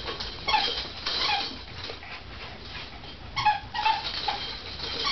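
Miniature schnauzer puppies yipping and whining in play: a few short, high-pitched cries about half a second in, around a second in, and again about three and a half seconds in.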